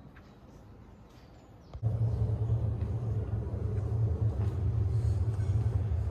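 A steady low rumble that comes in abruptly about two seconds in and holds, with a few faint clicks before it.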